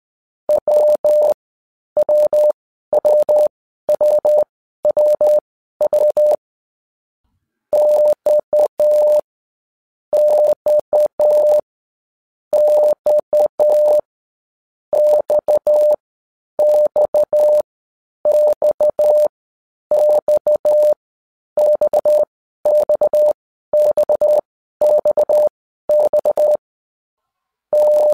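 Morse code sent as a single steady beep keyed in dots and dashes. The beeps come in short groups, one character at a time, each about a second long with roughly a second's gap between groups and a few longer pauses.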